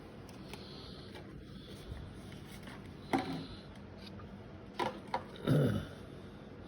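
A few light clicks and knocks from small objects being handled, with a short falling vocal sound about five and a half seconds in.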